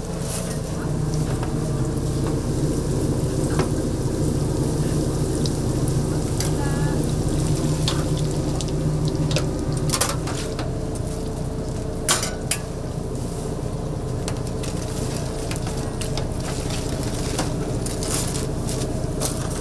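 Croquettes deep-frying in hot oil: a steady sizzle over a low hum, with a few sharp clicks of utensils, the loudest about ten and twelve seconds in.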